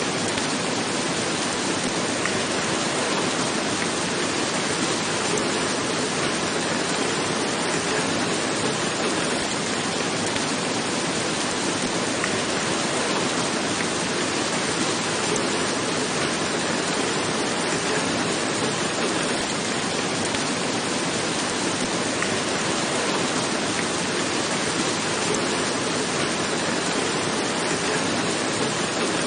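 Steady rain falling on a roof, a dense even hiss with faint scattered drops.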